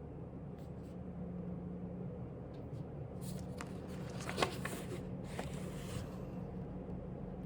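Steady low room hum, with a few seconds of light rustling and small clicks near the middle and one sharper click among them.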